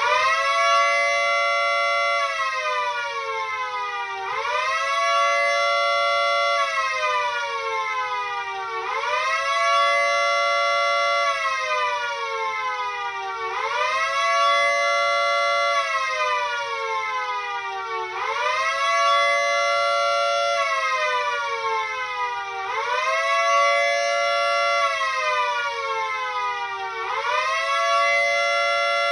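Miniature Federal Signal 2T22A dual-tone siren sounding a two-note chord that winds up quickly, holds, then slowly falls, repeating about every four and a half seconds as a wavering wail. It starts winding up right at the beginning.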